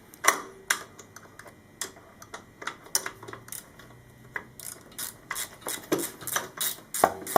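Sharp metallic clicks as a motorcycle chain-adjuster bolt is turned in by hand. They are scattered at first and settle about halfway through into a regular run of about four clicks a second.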